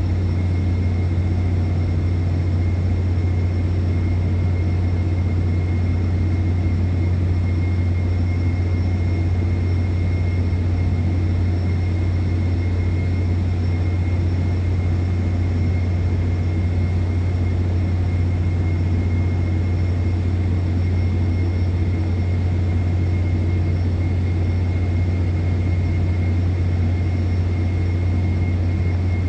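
Offshore oil and gas installation with its flare boom burning: a loud, unchanging low rumble with a constant hum and thin steady high whines above it.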